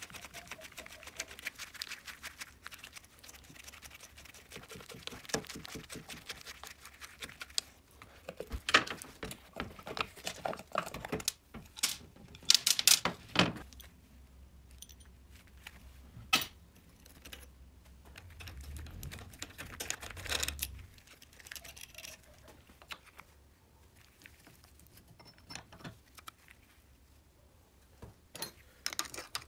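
Metal engine parts and hand tools clicking, knocking and clinking in irregular bursts as a moped engine is taken apart by hand: a screwdriver prying at the cast side cover and clutch plates lifted out. There is a sharp clatter about nine seconds in and a louder run of clatters around twelve to thirteen seconds.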